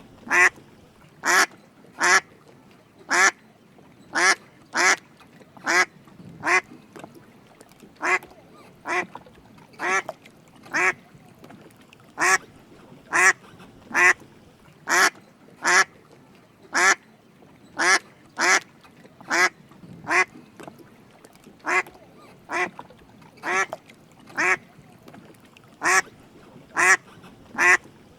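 Drake mallard calling: short quacks repeated about once a second, now and then two close together.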